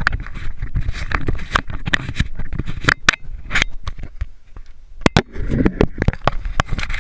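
Fingers handling a GoPro camera right at its microphone: irregular sharp knocks, clicks and scraping rubs.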